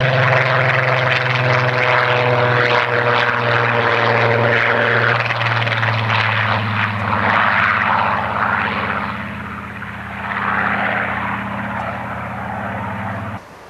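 Aircraft engine noise: a steady low drone under a rushing roar that swells and fades several times, cutting off abruptly near the end.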